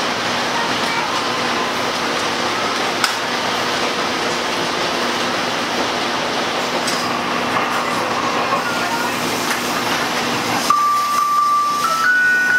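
Open-air trolley coach of a train rolling along the track: a steady rumble of wheels and rushing wind with a few clicks. Near the end a chime melody starts playing over the car's speaker, a few held notes stepping up and down in pitch.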